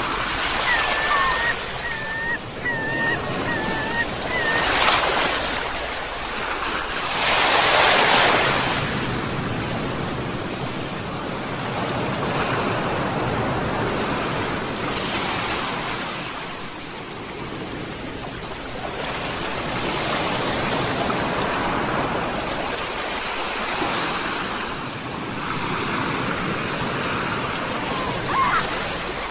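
Ocean surf washing in and out in slow surges, the biggest wave about eight seconds in. Seagulls call a few times in the first few seconds and once more near the end.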